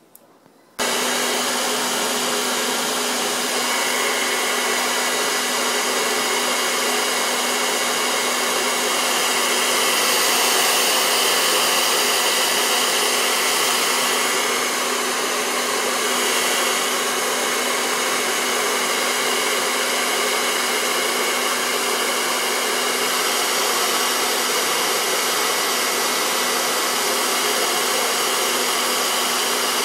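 Handheld blow dryer switched on a little under a second in, then running steadily with a faint whine, blowing hot air onto crayons to melt the wax.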